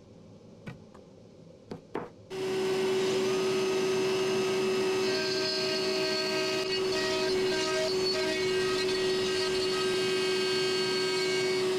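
Cordless compact router running at a steady high speed with a strong whine, swung around a circle-cutting jig to rout a round hole through plywood, with a dust extractor drawing through its hose. A few light knocks from setting up the tool come before the motor starts about two seconds in, and it shuts off near the end.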